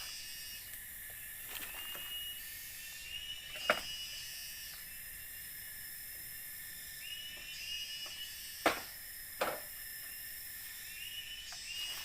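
Forest ambience: a steady high insect drone, with a short chirping animal call repeated every few seconds and three sharp clicks or taps.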